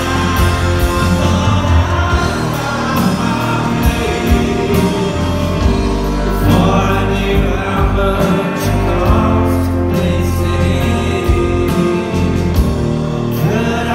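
Rock band playing live, a male singer singing over electric guitar, bass and drums, with a steady beat throughout.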